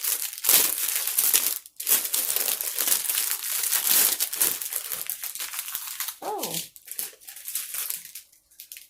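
Plastic packets of diamond-painting drills crinkling as they are handled, a dense rustle for about six seconds, then quieter. A short voiced sound, like a brief hum, comes about six seconds in.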